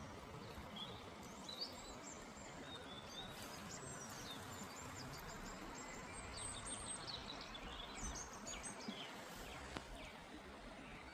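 Shallow river flowing over stones with a steady, even rush, while small songbirds chirp and twitter over it, most busily in the middle of the stretch.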